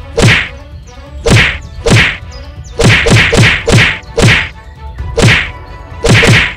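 Cartoon fight punch sound effects: about eleven loud whacks in quick, irregular succession, each with a fast downward swish.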